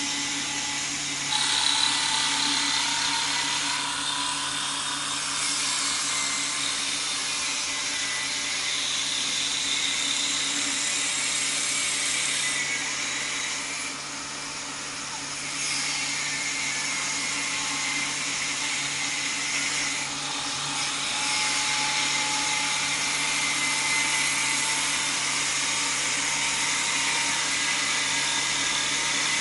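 An automatic wood-turning copy lathe runs with a steady motor hum while its cutters shave a spinning wooden dowel into a stick handle. The high cutting hiss rises and falls as each pass starts and ends, with a brief lull about halfway through.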